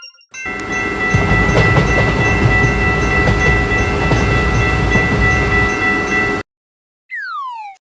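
Train passing: a loud rumble and rattle with a steady shrill tone over it, starting about half a second in and cutting off abruptly after about six seconds. Near the end, a falling whistle-like glide, then a rising one begins.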